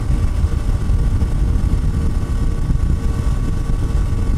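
Wind buffeting the microphone over the steady running of a Honda CT125 Hunter Cub's single-cylinder engine at riding speed, with a low, uneven rumble and a faint steady engine hum.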